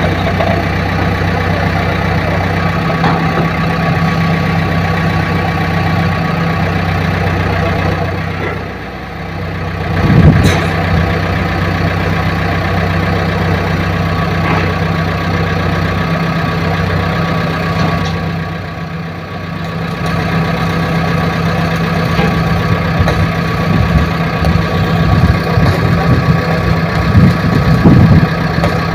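Diesel engine of a JCB 3DX backhoe loader running steadily. Twice the sound briefly drops and then picks back up.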